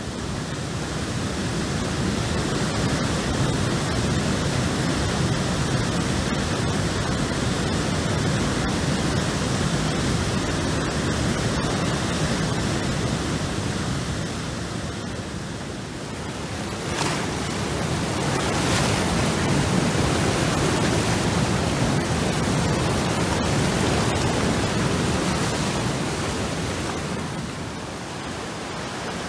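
Flood-swollen river rushing after a typhoon: a steady, loud rush of water that eases briefly about halfway through and again near the end.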